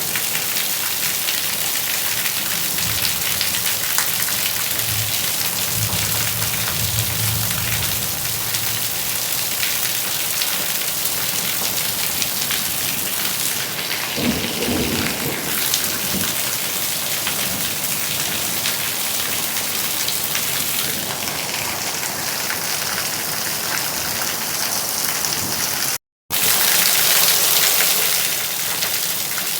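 Steady rain falling, with low rolls of thunder early on and a stronger one about halfway through. Near the end the sound cuts out for a split second and comes back slightly louder, like a splice in a looped recording.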